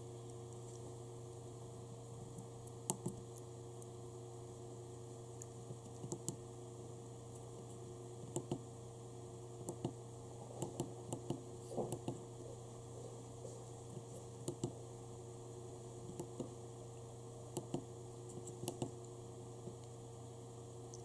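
Small tactile push buttons on a breadboard pressed by fingers: irregular sharp clicks, single and in quick pairs, over a steady electrical hum.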